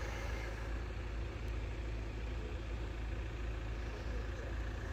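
Road vehicle engines idling in a steady low rumble.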